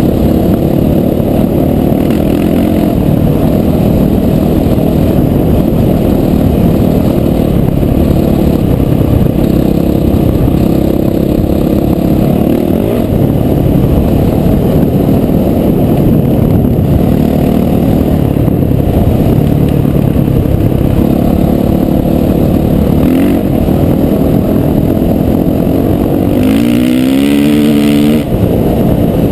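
Dirt bike engine running under way on a gravel track, its pitch rising and falling with the throttle, then revving up sharply near the end.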